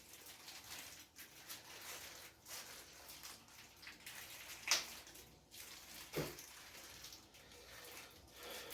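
Quiet handling of the shower hose and its fittings as they are fitted by hand: a faint rustle with two light clicks, a little past halfway and again a second and a half later.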